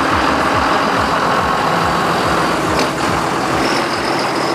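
Diesel engine of a John Deere tractor running steadily as it drives past close by, pulling a loaded parade wagon.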